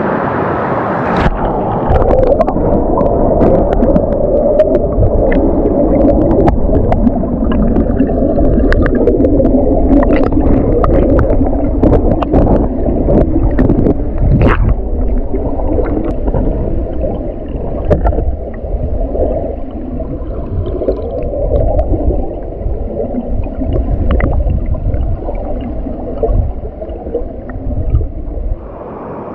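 Mountain stream heard from underwater: a muffled rush and gurgle of current with many scattered sharp clicks and ticks. It begins as the open-air rush of the stream and turns to the muffled underwater sound about a second in.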